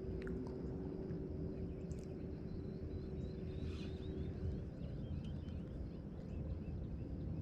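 Outdoor ambience: a low, steady rumbling background with a few faint bird chirps about four seconds in.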